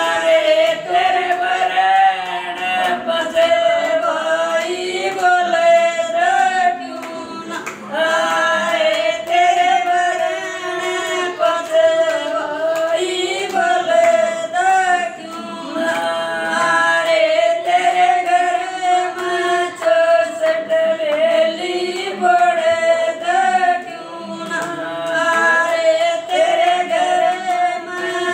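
Three women singing a sagai geet, a folk song for a betrothal, together without instruments, with hand claps keeping time through the song.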